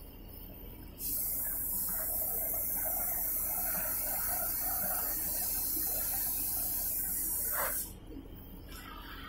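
Oxy-fuel cutting torch cutting through a steel plate. About a second in, the cutting-oxygen jet comes on with a loud, steady hiss and the crackle of molten steel spraying from the cut. It shuts off near the end, leaving a softer hiss.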